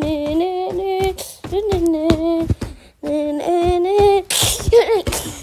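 A voice singing or humming a tune in held notes, broken up by sharp percussive clicks; about four seconds in a burst of hiss comes in with a wavering, sliding pitch.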